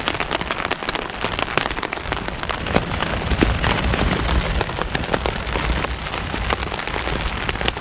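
Rain falling on a tarp shelter overhead: a steady dense hiss of rain with many sharp individual drop hits close by.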